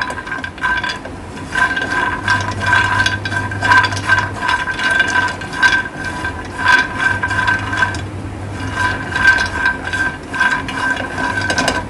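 Cashews and almonds clattering and scraping as a silicone spatula stirs them in a dry nonstick frying pan, dry-roasting without oil. Under the irregular clicks runs a steady high whine that drops out briefly twice.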